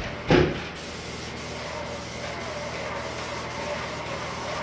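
Airless paint sprayer running while pre-catalyzed lacquer is sprayed: a steady hiss with a faint hum. A loud single knock comes about a third of a second in.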